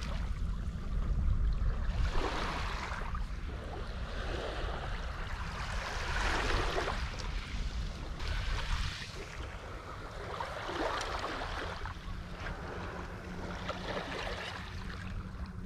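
Small waves washing up on a sandy, pebbly shore in repeated swells every couple of seconds, with wind rumbling on the microphone.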